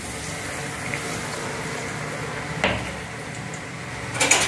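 Besan-coated peanuts, just tipped into hot oil in an iron kadhai, sizzling steadily as they fry. A metal clink comes about two and a half seconds in, and a louder scrape of metal against the pan comes near the end.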